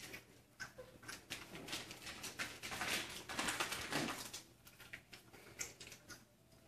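Chocolate Labrador puppies lapping water from plastic bowls: a rapid run of small wet clicks and splashes, busiest about three to four seconds in.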